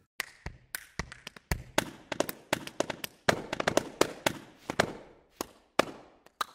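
Sampled body percussion from ProjectSAM's True Strike library played back: a quick, uneven run of hand claps, finger snaps and similar body hits, about three a second, each with a short room tail.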